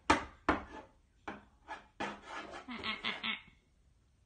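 A baby's hands slapping a wooden closet door: a run of sharp knocks, about two or three a second. They are loud at first, grow weaker, and stop about three and a half seconds in.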